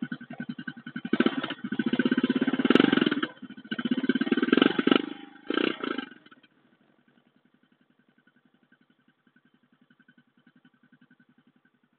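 Euro X125 motorcycle engine running through its stock exhaust, a rapid even putter at idle, with the throttle blipped into short revs four times in the first six seconds. It then drops suddenly to a much fainter, steady idle putter.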